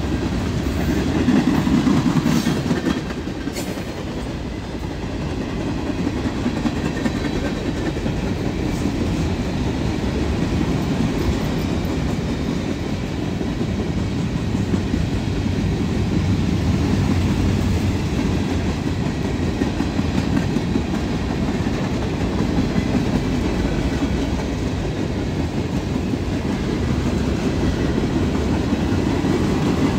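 Freight cars of a long train rolling past close by at steady speed, boxcars then covered hoppers. Their wheels rumble steadily on the rails, a little louder about two seconds in.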